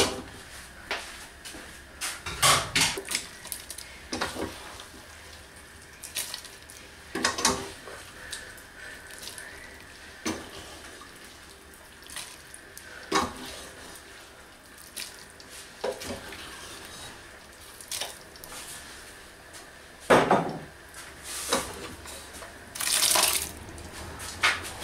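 Cooked lentils poured from a metal pot into a large aluminium pot of thin white sauce: wet splashing and plopping, with scattered knocks and clinks of metal pots every few seconds and a longer splash near the end.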